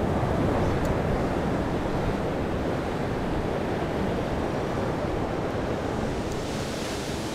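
Ocean surf washing and rushing over tide-pool rocks, a steady roar of water with wind buffeting the microphone.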